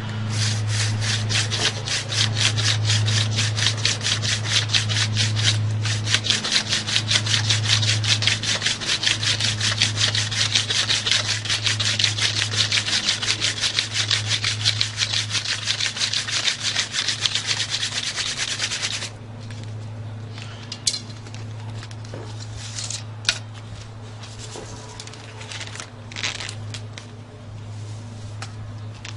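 Hand-drill spindle spun between the palms in a notch of a fireboard, making rapid, even rubbing strokes to grind out an ember for a friction fire. The rubbing stops suddenly after about nineteen seconds, and a few light clicks and handling sounds follow. A steady low hum runs underneath.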